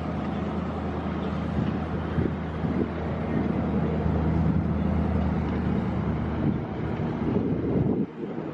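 A low, steady engine drone with wind noise on the microphone, cutting off sharply about eight seconds in.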